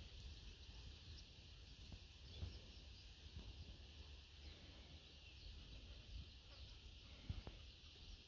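Near silence: faint background hiss and low rumble, with a few faint distant bird chirps.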